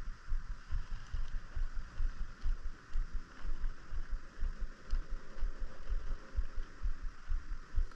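Wind buffeting the microphone in irregular low gusts, over a steady faint hiss.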